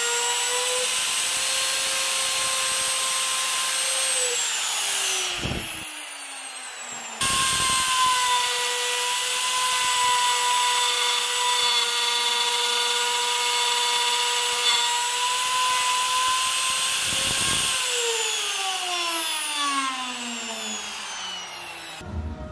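Electric plunge router running at speed with a steady high whine as it cuts the oak-and-resin panel. Its pitch falls as it winds down about four seconds in, it runs at full speed again a few seconds later, and it winds down once more near the end.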